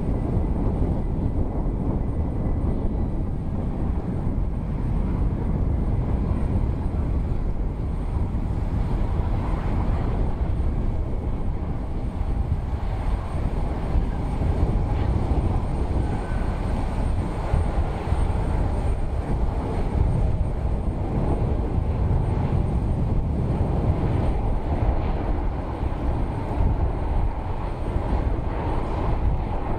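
Gulfstream business jet landing and rolling out on a wet runway, its engines a steady low rumble.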